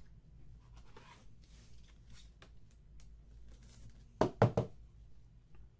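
Faint rustling of trading cards and plastic holders being handled, then three quick sharp taps of fingers on the tabletop a little past four seconds in.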